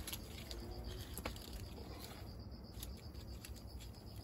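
Crickets chirping steadily in a quiet night background, with a few faint scattered ticks.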